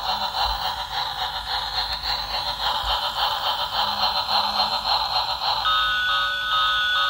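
Battery-powered toy train's electronic sound effects as it runs on its plastic track: a buzzing, fluttering electronic sound, which about five and a half seconds in switches to a repeating electronic ding-ding bell tone, about two chimes a second.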